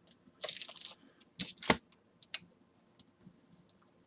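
Scattered desk handling noises: a short scratchy rustle, then two sharp clicks about a second and a half in, followed by faint light ticks.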